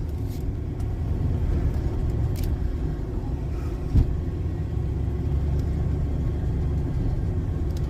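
A truck's engine and road rumble from inside the cab while it tows a loaded boat trailer, with a single sharp thump about four seconds in.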